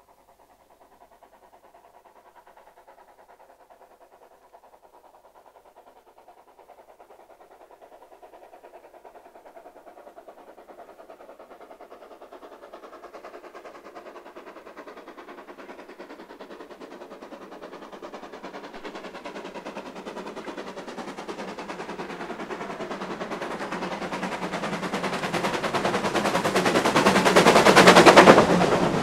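Steam tank locomotive hauling a goods train, its rapid exhaust beats growing steadily louder as it approaches. The sound peaks near the end and drops abruptly as the engine passes close beneath, leaving the wagons rolling by.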